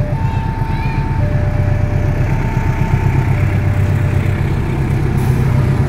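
KAI CC 206 diesel-electric locomotive running with a steady low drone as it approaches hauling a passenger train. Over it, a level-crossing warning alarm sounds a two-tone electronic chime, alternating high and low about once a second, which fades after the middle: the signal of a train approaching the crossing.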